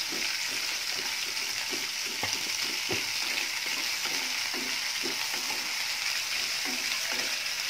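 Sliced onions, curry leaves and mustard seeds sizzling in hot oil in a pan, stirred with a wooden spatula: the tempering (tadka) being fried for tomato-pepper rasam. The spatula knocks lightly on the pan twice, about two and three seconds in.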